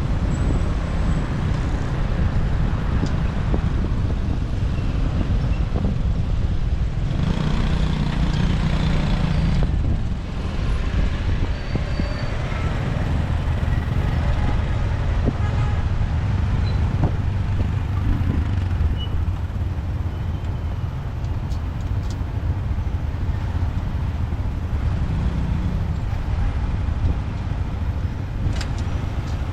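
Motorbike ride through city traffic: a steady low rumble of engines and road noise.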